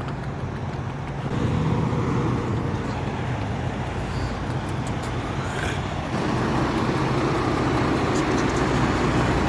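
Semi-truck engine and road noise from inside the cab while driving, a steady low drone that gets louder about a second in and again near six seconds.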